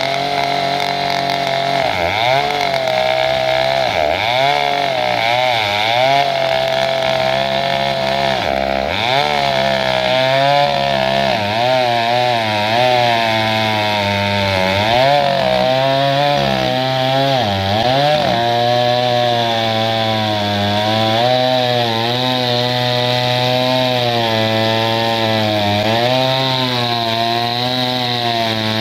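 Chainsaw running at high revs while cutting through a large log. Its pitch dips and rises again and again through the first two-thirds, then holds steadier with a slight waver.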